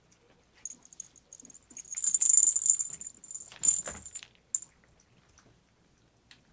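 Metallic jingling with a high, steady ringing tone, loudest from about two to four seconds in.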